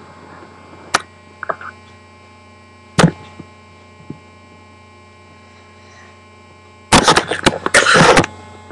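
Steady electrical hum with a faint buzz, broken by two sharp clicks about one and three seconds in. Near the end comes a second and a half of loud rustling and bumping, the camera being handled.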